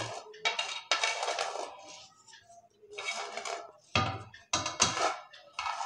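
Dry uncooked rice rustling and scraping against a stainless steel bowl in several irregular bursts as a hand mixes in salt and ground spices.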